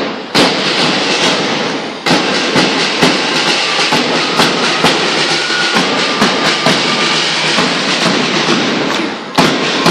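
School marching band's drum section playing a steady marching beat: snare drums rattling continuously, with sharp drum strokes about once a second and lighter ones between.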